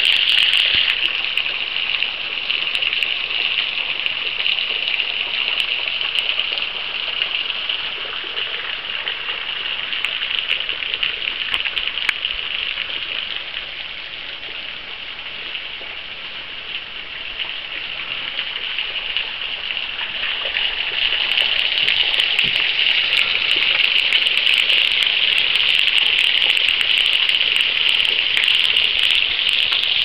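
Small waterfall at light flow, thin strands of water falling off a rock ledge and splashing below: a steady hiss of splashing water, patter-like, which fades somewhat about halfway through and rises again later on.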